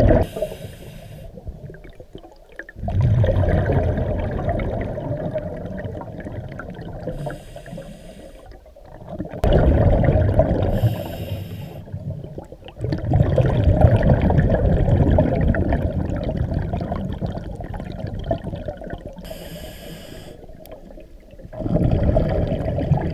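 A scuba diver breathing through a regulator underwater: a short hiss on each inhale, then a long rush of exhaled bubbles that fades away, about four slow breaths.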